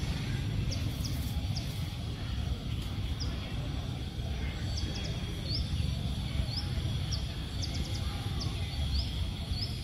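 Outdoor ambience with a string of short, high animal chirps, more frequent in the second half, over a steady low rumble and a faint steady high hum.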